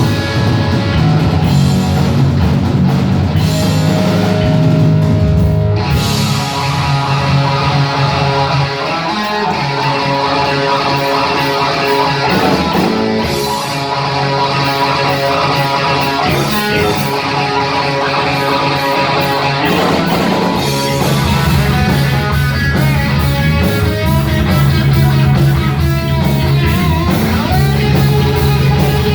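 Live heavy metal band playing an instrumental passage: distorted electric guitars over bass and drums.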